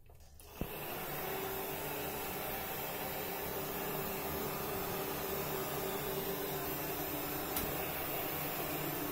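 Wall-mounted hotel hair dryer switched on with a click about half a second in, then running steadily: motor hum under a hiss of blowing air.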